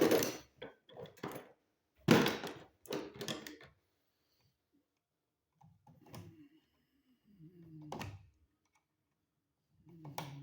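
Clicks and knocks of hand work on a wall receptacle: a bare copper ground wire being looped around the green screw and handled with tools, in quick clusters near the start and about two seconds in, then sparser and quieter.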